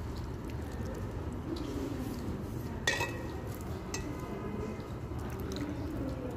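Metal ladle clinking against a ceramic soup bowl as broth is spooned over the meat. There is one sharp clink with a brief ring about three seconds in and a fainter knock a second later, over a steady low background hum.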